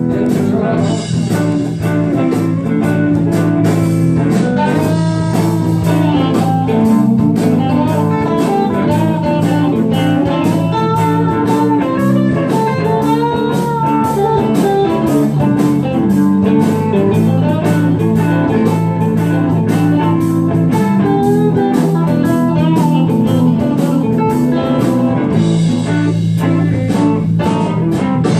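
Live blues-rock band playing: electric guitar lines over bass guitar and a drum kit, heard through a phone's microphone.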